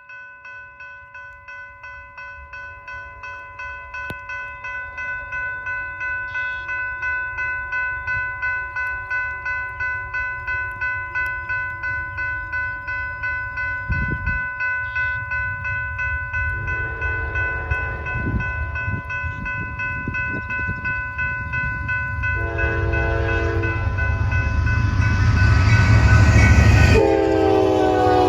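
Grade-crossing bell ringing steadily about twice a second as a Norfolk Southern freight train approaches, the low rumble of its locomotives growing louder. From about 17 seconds in the locomotive horn sounds several blasts, the last and loudest one dropping in pitch as the engine passes.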